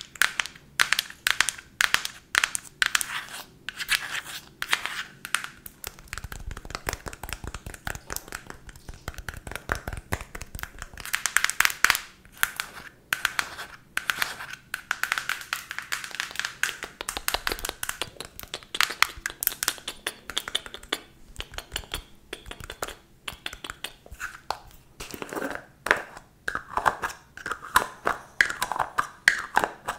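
Long acrylic fingernails tapping and scratching on a Nivea cream jar held close to the microphone, in quick irregular runs of sharp clicks.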